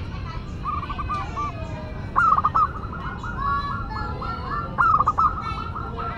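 Zebra dove (perkutut) cooing in repeated phrases of quick, rolling staccato coos, each phrase opening loudly. Fainter chirps of other small birds sound in the background.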